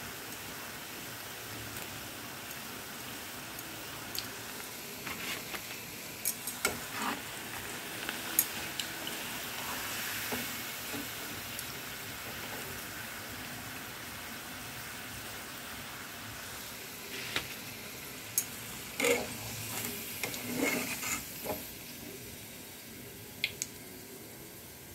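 Potato fries deep-frying in hot oil in a metal kadhai: a steady sizzle, with a slotted spoon clinking against the pan a few times as the fries are stirred and lifted. The sizzle grows fainter near the end.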